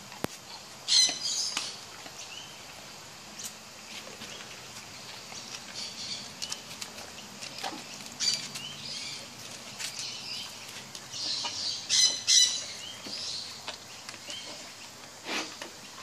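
Lory parrot calling: short high chirps every second or so, with louder harsh squawks about a second in, a pair about three-quarters of the way through, and another near the end.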